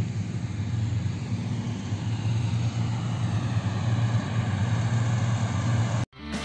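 Motor grader's diesel engine running steadily under load. Near the end it cuts off abruptly and music begins.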